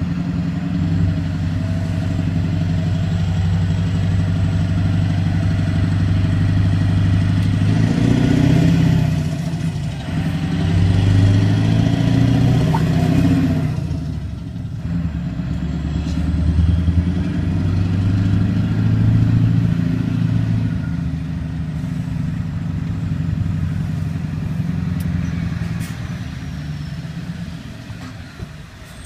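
Vehicle engine running with road noise, heard from inside a car's cabin. The engine note swells and eases several times, then fades near the end.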